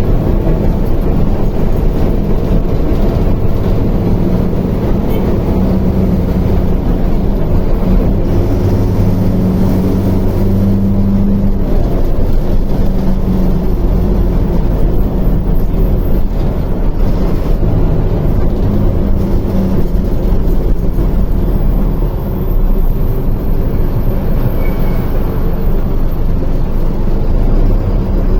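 Mercedes-Benz OF 1721L bus's four-cylinder BlueTec 5 diesel engine running loud and steady under way, its pitch shifting slightly up and down, with a brief dip in loudness about three-quarters of the way through.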